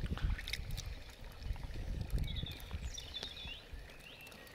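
Water splashing and sloshing in a plastic bucket as a hand scoops up a small carp, over a low irregular rumble. A few short high chirps sound about two to three seconds in.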